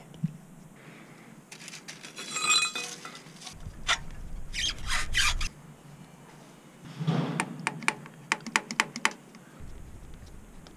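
Metal hand tools and sockets clinking and rattling while the water pump cover is bolted back on, ringing briefly, with a run of sharp clicks about seven seconds in.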